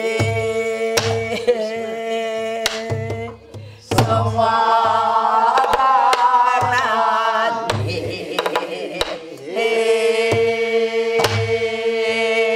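A woman singing long held notes in Korean folk-song style while beating a buk barrel drum herself: deep thumps from the hand-struck head and sharp cracks of the stick, in a steady rhythmic accompaniment. The voice bends and ornaments through the middle, then settles back on a held note.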